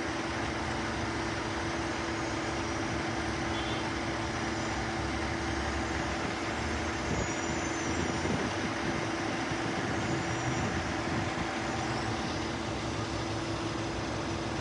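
A large truck engine, most likely a fire truck on scene, idling steadily with a constant low hum.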